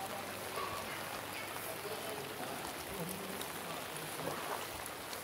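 Heavy rain falling steadily, an even hiss of rain on the water and ground, with faint voices in the distance.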